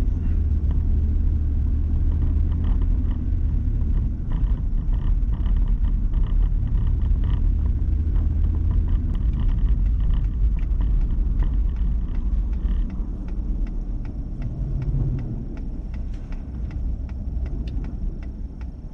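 Low, steady road and engine rumble heard inside the cabin of a four-wheel-drive vehicle on the move. It grows quieter in the second half, with a few faint ticks near the end.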